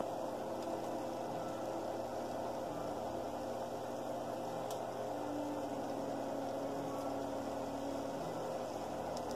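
Presto Pizzazz Plus rotating pizza oven running: a steady hum as its tray turns the pizza under the lit heating element, with a few faint ticks.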